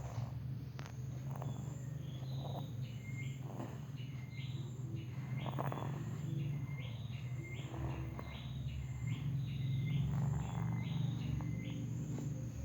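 Someone asleep and snoring, a low steady rasping drone that gets louder past the middle, with a high chirping repeating about twice a second behind it.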